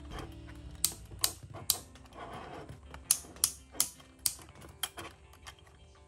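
Sharp plastic clicks, about a dozen at irregular intervals, from a toy remote-control excavator being handled, over background music.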